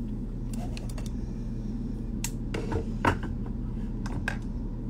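Scattered light clicks and taps, about a dozen in irregular clusters, the loudest about three seconds in, over a steady low hum.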